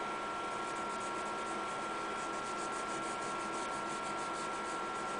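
Pencil strokes scratching faintly on sketchbook paper during shading, in quick repeated strokes, over a steady hiss and a constant thin high hum.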